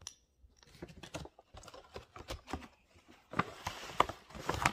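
Handling noise close to the microphone: a run of small clicks and taps, with rustling joining in about three and a half seconds in and getting louder.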